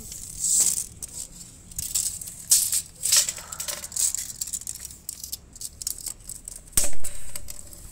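Handling noise: rattling, rustling and clicking as a metal tape measure is pulled out and held against a plywood plyo box, with one loud sharp click near the end.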